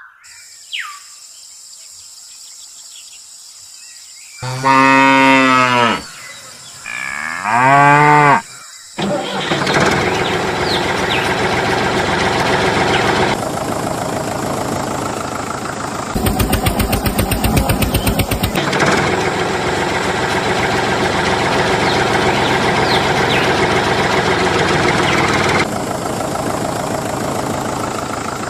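Two long cow moos, then a tractor engine running steadily, with a harder chugging stretch partway through.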